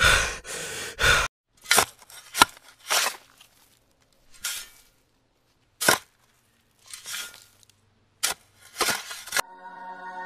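A piece of cutlery digging into dry soil: short separate scrapes and crunches, with a few sharp clicks between them. Music starts just before the end.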